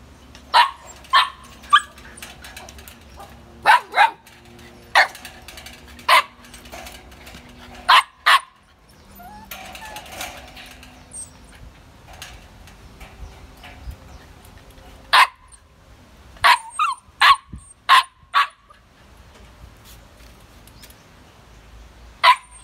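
Husky puppies barking: short, high-pitched barks in small clusters with pauses between, a dozen or more in all.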